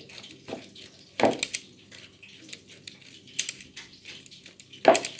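Small fish and flour rattling in a stainless steel mesh strainer being shaken to coat the fish in flour: a run of irregular clicks and scrapes, with two louder knocks, about a second in and near the end.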